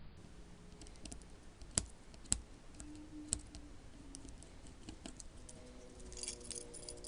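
Small metal parts of a toy train locomotive being handled with hand tools as its E unit is worked loose: a few sharp scattered clicks and taps, then a light metallic rattling starting near the end.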